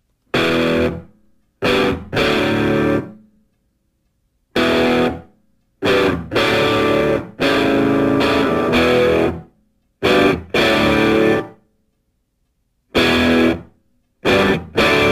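Music: guitar chords struck in short stop-start stabs, about a dozen of them, each cut off into complete silence before the next.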